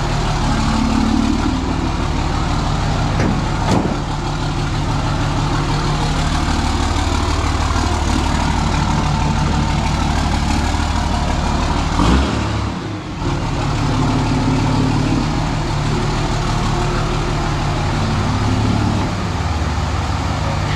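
Dodge third-generation Cummins inline-six turbo-diesel running steadily, just back together after a clutch replacement. About 12 seconds in there is a knock and the engine note briefly drops before settling back.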